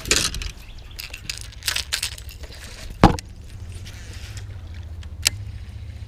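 Fishing gear handled on a bass boat's deck: a run of rattles and clicks, then one sharp knock about three seconds in and a single short click near the end, over a steady low hum.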